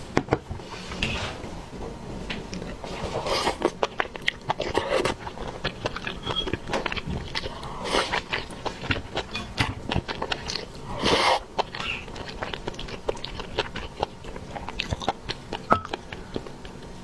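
Close-miked eating sounds: a person chewing mouthfuls of rice and saucy braised chicken, with wet mouth noises and frequent short clicks of chopsticks against a porcelain rice bowl.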